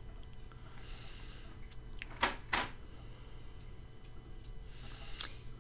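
Hand embroidery on felt: needle and thread being drawn through the felt, with two sharp clicks a little over two seconds in, over a steady low hum.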